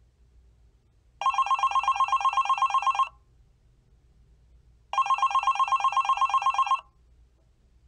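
Telephone ringing: two rings of about two seconds each, separated by a pause of about two seconds. Each ring is a rapid, even trill of about ten pulses a second.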